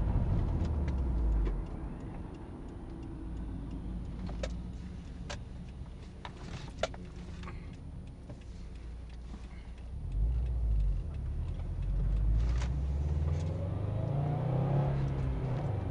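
Subaru WRX's turbocharged flat-four engine and road noise heard from inside the cabin while driving. It eases off about a second and a half in, with a few light clicks in the quieter stretch, then pulls harder again near the end with a rising engine note.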